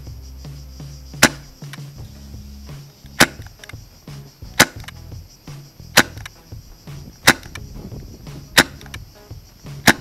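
HFC Savaging Bull gas-powered airsoft revolver firing single shots: seven sharp pops, about a second and a half apart.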